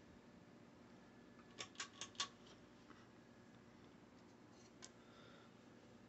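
30-inch Craftmade Piccolo ceiling fan running quietly, its motor hum barely audible. A quick run of four light clicks comes about a second and a half in, and one more click about five seconds in.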